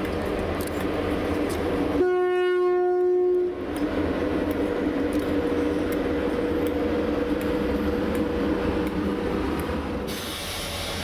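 Locomotives running at low speed with a steady hum and rumble. About two seconds in, a locomotive horn sounds one single-tone blast lasting about a second and a half.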